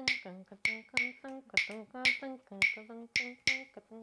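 Pair of wooden claves struck together in a quick, uneven rhythm of sharp, ringing clicks, about three a second. A voice sings wordless notes underneath.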